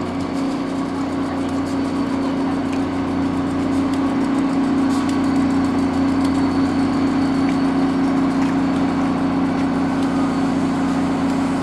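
CTrail Shore Line East EMD GP40-2H diesel locomotive idling, a steady low drone.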